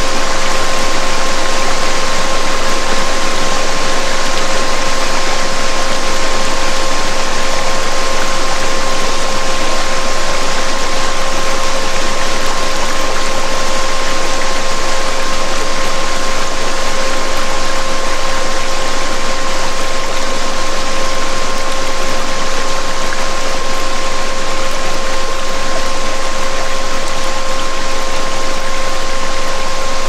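Steady waterfall rush mixed with a continuous electronic tone and a fainter tone an octave above it, the 528 Hz 'DNA repair' healing frequency.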